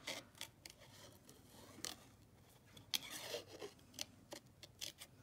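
Small Tim Holtz craft scissors snipping through paper, a faint series of short snips at an uneven pace as the blades work around a cut-out shape.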